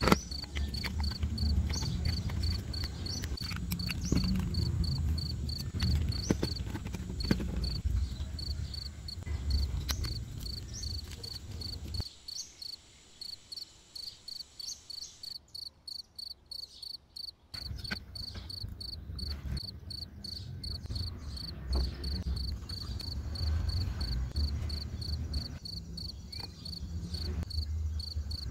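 An insect chirping in a steady, high-pitched pulse, about four chirps a second, over low rumbling and the handling sounds of wiring and soldering work.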